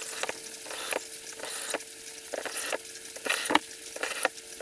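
Cordless drill-driver running in short runs, driving screws one after another into mahogany V-groove panelling: a steady motor whine and hiss broken by brief pauses, with sharp clicks between screws.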